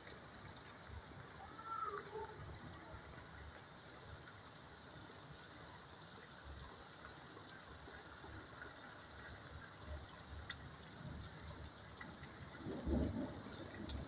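Steady rain falling, a soft even hiss of water. There is a short faint bird call about two seconds in, and louder low rustling bursts near the end.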